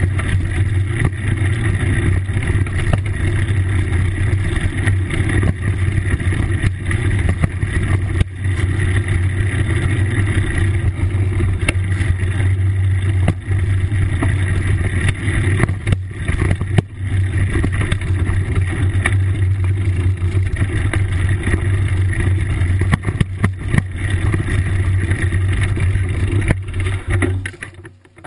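Steady low rumble and wind buffeting on a camera mounted on a mountain bike rolling over a dirt trail, with scattered knocks and rattles as the bike jolts over bumps. The rumble drops away near the end.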